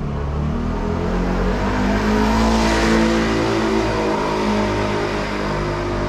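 A motor vehicle passing close by with its engine running, growing louder to a peak about halfway through and then easing off slightly.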